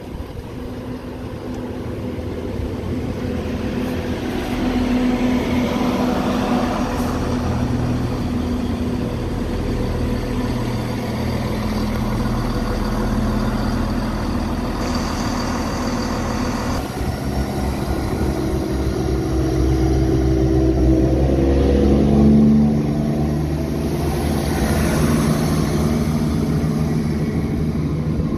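Class 170 Turbostar diesel multiple unit running along the platform with a steady low rumble. About two-thirds of the way in, its underfloor diesel engines rev up as it pulls away, the engine note rising for several seconds and then levelling off.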